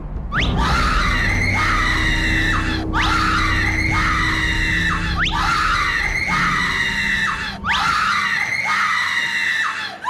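High-pitched screaming in terror: four long screams in a row, each opening with a sharp rising shriek, as a man sits up out of an open coffin in a small elevator.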